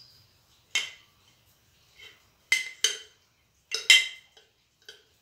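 Steel kitchen utensils clinking: about eight sharp metallic clinks, each with a short ring, at uneven intervals. The loudest are two close pairs, the last about four seconds in.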